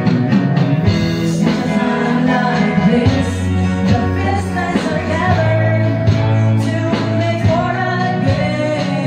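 Two women singing a gospel song in duet into microphones over instrumental accompaniment, with guitar and a steady bass line; the melody holds one long note about midway through.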